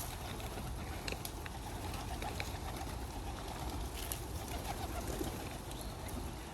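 Pigeons cooing, with scattered short chirps and ticks over a steady low rumble.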